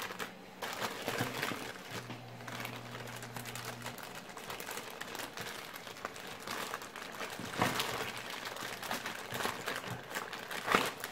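Plastic parts bags rustling and crinkling as they are handled and rummaged through, with a couple of sharper knocks in the second half.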